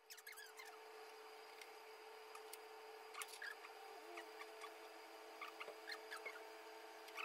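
Near silence: a faint steady room hum with a scattering of faint light ticks and clicks.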